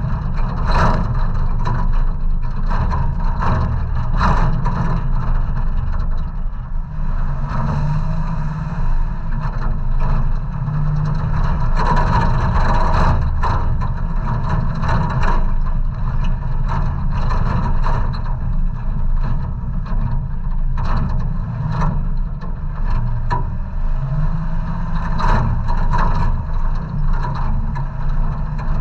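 Solid-axle-swapped 1990 Toyota 4Runner crawling a rutted dirt trail: engine running at low revs, its pitch rising and falling a little. Frequent knocks and rattles come from the truck bouncing over the ruts.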